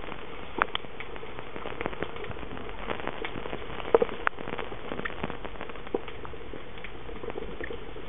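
Underwater ambience heard through the sealed body of a Pentax Optio W30 waterproof compact camera: a steady hiss with scattered sharp clicks and crackles, the loudest snaps about four seconds in.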